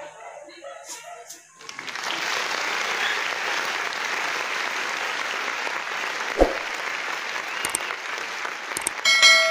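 Applause starts suddenly about a second and a half in and goes on steadily. Near the end come a click and a bell chime.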